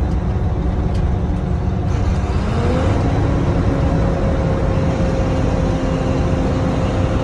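Diesel box truck driving at highway speed, heard from the cab: steady engine and road noise. About two and a half seconds in the engine's hum rises in pitch, then holds steady.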